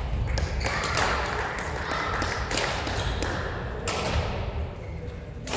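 A series of sharp badminton racket hits on a shuttlecock, with players' footsteps and shoe noise on the wooden court floor, heard in a large sports hall.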